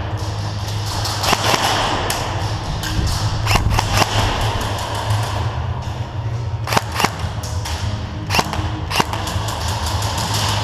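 Airsoft guns firing scattered single shots, sharp snaps at irregular intervals, over background music with a steady heavy bass.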